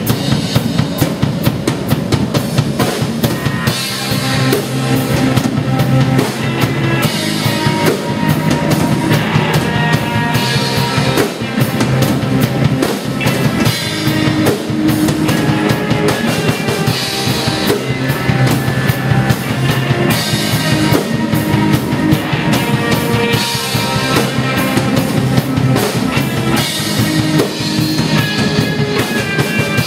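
Loud live rock band playing: a drum kit keeping a steady beat with bass drum and snare, under electric guitar. It starts abruptly with the cut from silence.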